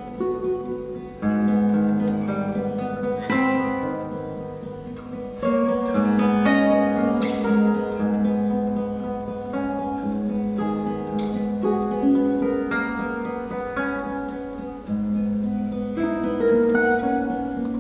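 Two nylon-string classical guitars playing a piece together: plucked, ringing melody notes over held bass notes, growing louder about a second in and again near six seconds.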